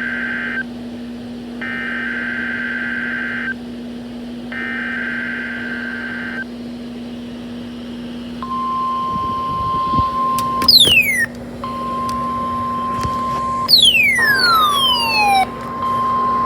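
NOAA Weather Radio alert tones: three short bursts of warbling digital data tones (the SAME header), then the long steady 1050 Hz weather radio alarm tone. Two loud whistle-like sounds sliding steeply down in pitch cut into the alarm tone, about ten and fourteen seconds in, over a low steady hum.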